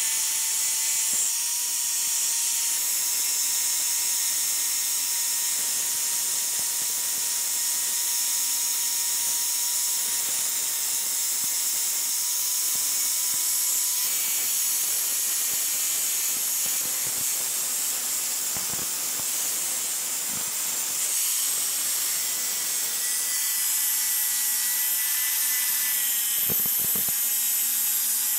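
Electric angle grinder running steadily, its abrasive disc grinding the metal of a pipe wrench: a constant high motor whine over a hiss of grinding. The pitch dips slightly here and there as the disc is pressed harder.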